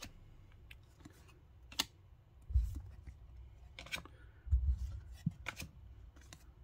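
Baseball trading cards being flipped one by one through a small stack in the hands, each card's edge giving a short sharp snap every second or two, with a couple of low soft thuds from the cards and hands being handled.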